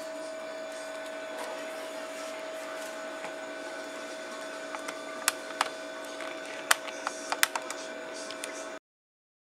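Steady machine hum with a few sharp clicks near the end; it cuts off abruptly shortly before the end, leaving silence.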